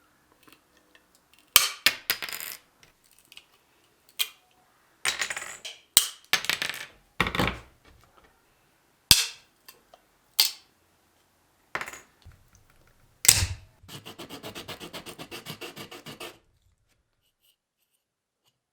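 A 3D-printed plastic support stand being cut and snapped away from a printed figure: a string of irregular sharp clicks, snaps and scrapes, then a quick run of scraping strokes, about eight a second, for a couple of seconds near the end.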